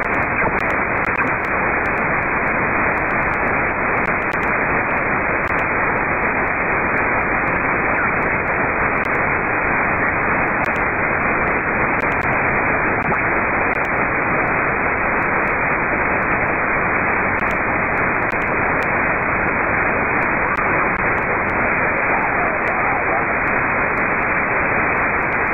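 Steady hiss of a radio receiver with no station on frequency: open-band noise from an RTL-SDR dongle fed off a Kenwood TS-2000's IF, heard through a narrow voice filter that cuts off everything above about 2.5 kHz.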